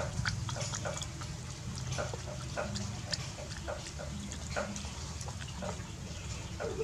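A puppy lapping and slurping watery rice from a plastic basin: irregular wet smacks and laps, a few each second.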